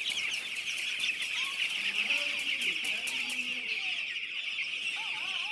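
A large flock of chickens calling all at once: a dense, continuous chorus of high overlapping cheeps, with scattered lower clucks.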